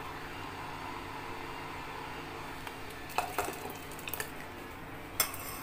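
Boiling water poured in a thin stream from a kettle into an enamel pot of water, a steady quiet trickle with a few light clinks of kitchenware in the second half.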